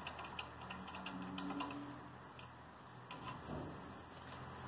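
Light, quick metallic clicks and ticks as lug nuts on a 2008 Hummer H3's wheel are worked by hand and with a four-way lug wrench. The clicks come thick over the first two seconds, then only now and then.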